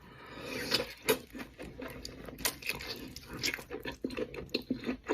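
A person biting into and chewing lobster tail meat, with wet mouth sounds and irregular clicks and smacks.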